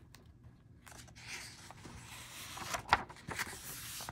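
A book page being turned by hand: paper rustling starting about a second in, with two sharp crackles about three seconds in as the page is pressed over.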